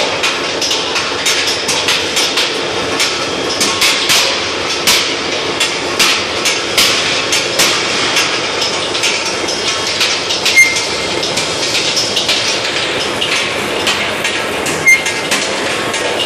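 Steel-ball rolling mill machinery running: a steady mechanical din with dense, irregular metallic knocks and clatter, and two sharp ringing metal clangs, about ten and fifteen seconds in.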